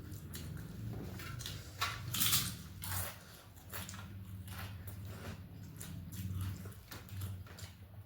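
Close-up eating sounds: chewing with irregular crunches and smacks, the crunchiest about two seconds in, over a steady low hum.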